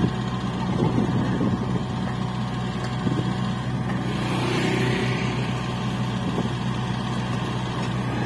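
Steady engine drone of a Hanta F1740C mini asphalt finisher at work, with motorbikes riding past close by about halfway through and again near the end.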